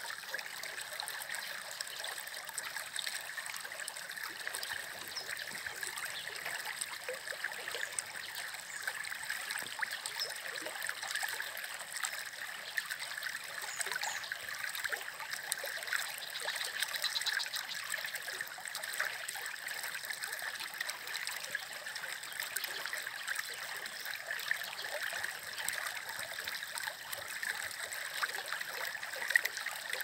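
Shallow stream of muddy water flowing along a path: a steady trickling rush with many small splashes.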